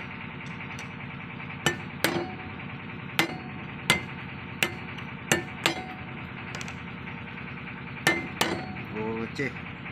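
A hammer strikes a steel drift held against a marine gearbox's shaft end, about nine sharp metallic blows at uneven intervals, in pairs and singles, as the part is driven. A steady machine hum runs underneath.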